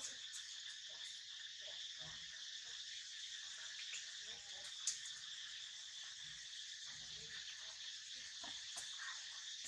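Steady, high-pitched insect chorus. Faint scattered soft low sounds underneath, and one sharp click about five seconds in.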